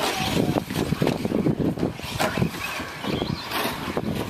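Electric 4WD radio-controlled short-course trucks racing on a dirt track: motors running and tyres churning the dirt in an uneven, rising-and-falling mix, with some wind noise on the microphone.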